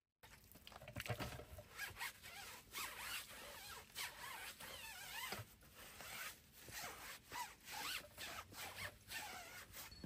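Stiff plastic-bristled tire brush scrubbing a soapy, foamed tire, in quick, uneven strokes with a squeaky scratching sound.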